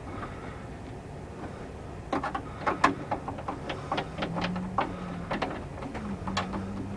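Screws of an RV interior door handle being tightened with a driver. A run of quick clicks starts about two seconds in, and a low steady motor hum comes in over the second half. The screws are being run in snug, not fully tight.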